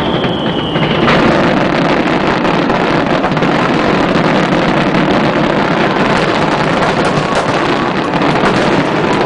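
Fireworks display: a dense, continuous barrage of crackles and bangs. A whistling tone, falling slightly, stops about a second in.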